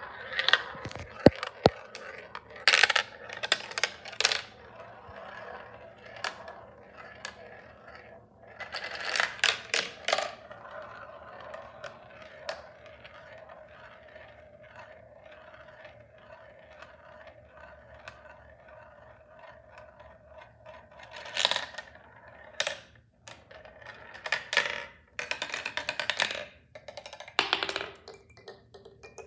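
A glass marble clattering through a plastic marble run, with sharp clicks and knocks as it drops through tubes and onto tracks. From about 10 to 21 seconds it spins around a plastic funnel bowl with a long steady hum. Near the end come quick, dense clicks as it bounces down a board of nails.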